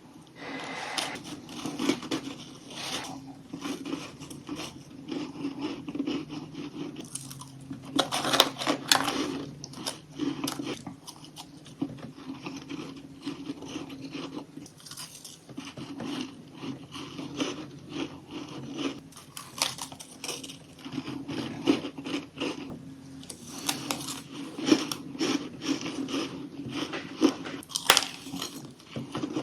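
Chunks of humidifier freezer frost being bitten and crunched close up, a steady run of crisp crackling crunches with louder bites now and then.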